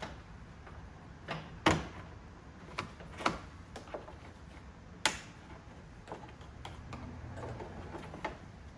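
Plastic trim clips on the car's upper grille cover snapping and clicking as they are worked loose by hand. There are about eight sharp clicks at uneven intervals, the loudest about two seconds in.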